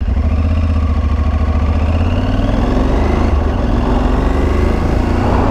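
Aprilia Tuareg 660's parallel-twin engine running steadily as the motorcycle sets off, its pitch rising a little about two seconds in.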